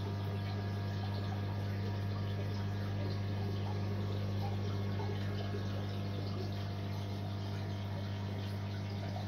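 A sumped aquarium's water pump giving a steady low hum over an even wash of water circulating through the tank and sump.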